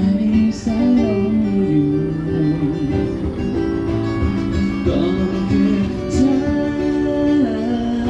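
Music: acoustic guitar playing with a singing voice.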